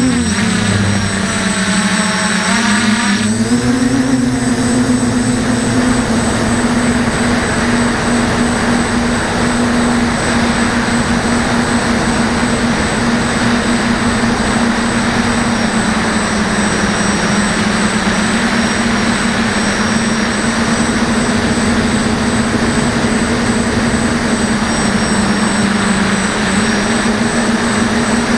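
DJI F450 quadcopter's electric motors and propellers, heard from a camera on the drone itself: a steady buzzing hum that wavers a little in pitch, under a rush of wind noise.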